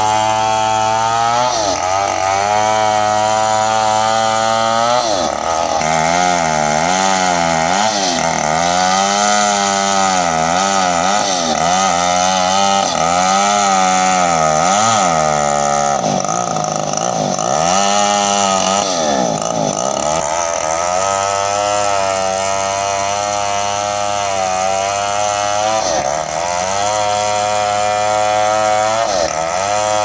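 Stihl 070 two-stroke chainsaw running under load as it rips lengthwise down a very large log. The engine holds a steady pitch at first, rises and falls repeatedly through the middle stretch as the chain loads and frees in the cut, then settles steady again near the end.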